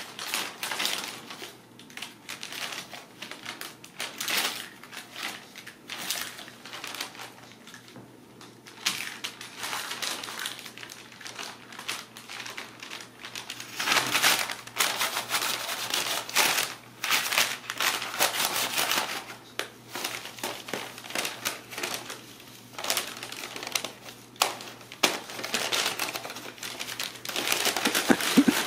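Brown kraft paper crinkling and rustling under kittens scrambling and pouncing on it, in irregular bursts of crackles and taps, louder and busier from about halfway through.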